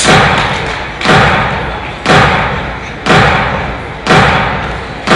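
Heavy booming impact hits in a soundtrack, one about every second, each struck sharply and dying away with a long echoing tail.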